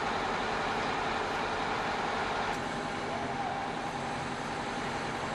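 Steady mechanical drone with a few faint steady tones, like a motor or machinery running in a vehicle repair shop.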